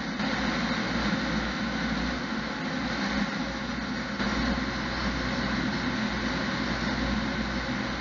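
Fire engine driving at a steady pace, its engine rumble and road noise heard from inside the cab.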